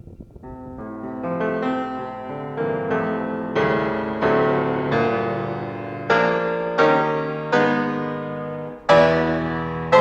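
Background music: a piano or electric piano playing a slow sequence of chords, each struck and left to ring and fade.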